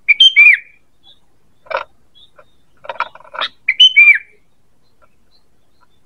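Sooty-headed bulbul (kutilang) calling: two loud, short whistled phrases that end on a falling note, one right at the start and one about four seconds in, with harsher chattering notes in between.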